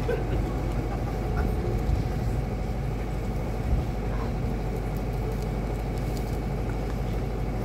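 Room tone of a concert hall between songs: a steady low hum under a noise haze, with a few faint rustles and clicks.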